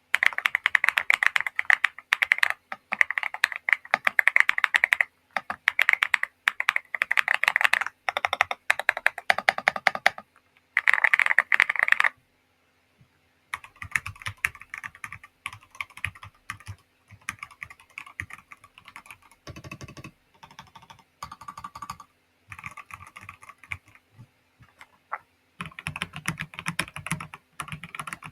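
Mechanical keyboard being typed on in fast runs of keystrokes. The typing is loud and clicky for the first twelve seconds, then stops briefly. It resumes more softly and grows louder again, with a deeper tone, near the end.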